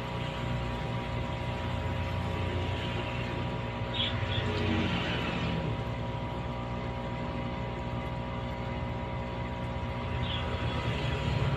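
A steady mechanical hum made of several constant tones over a low drone, with a few faint short high blips about four seconds in and again near the end.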